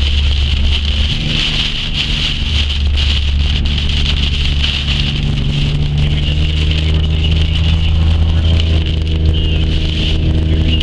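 Car engine and road noise heard from inside the moving vehicle's cabin, steady and loud, with a constant hiss over it.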